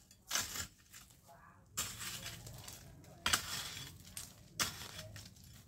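A hoe chopping into dry soil four times, about one stroke every second and a half. Each stroke is a sharp hit followed by a scraping drag.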